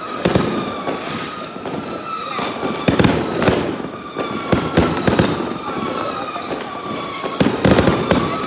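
Fireworks going off: clusters of sharp bangs and crackles, strongest about three seconds in, around five seconds in and near the end. Under them runs a steady high whine that slowly drops in pitch.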